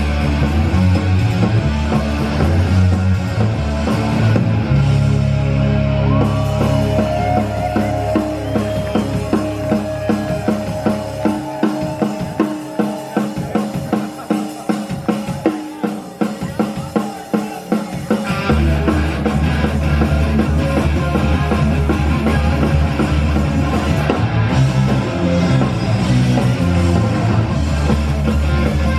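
Punk rock band playing live, an instrumental passage without vocals. About eleven seconds in, the bass drops out and the drums carry on alone with a fast, sharp beat; the full band crashes back in about seven seconds later.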